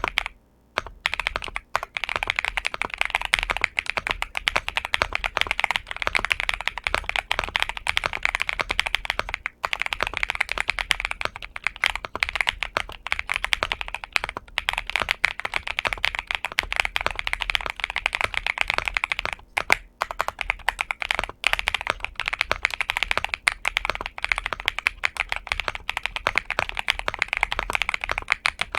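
Xinmeng M75 Pro mechanical keyboard with Dark Plum switches being typed on: a dense, fast run of keystrokes, broken by short pauses about a second in, around ten seconds in and around twenty seconds in.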